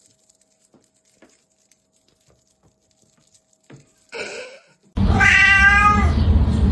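A domestic cat's long, loud meow about five seconds in, over a low rumble, after a few seconds of near silence and a brief sound just before it.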